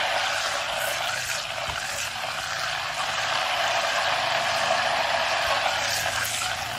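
Butter sizzling steadily in a stainless steel saucepan over a gas flame as it browns, a few faint crackles in the hiss; the sizzle comes from the water in the butter boiling off.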